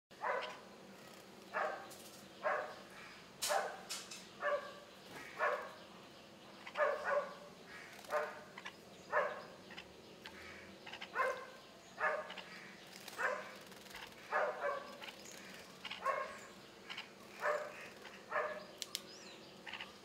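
A dog barking over and over, about once a second, with single barks and quick doubles.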